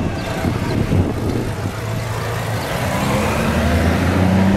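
Engine of a Honda Gold Wing touring motorcycle running at low speed, with its pitch rising from about three seconds in as the bike accelerates away.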